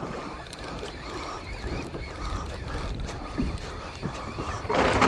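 Steady wind and water noise around a small drifting fishing boat, with a louder rush of noise near the end.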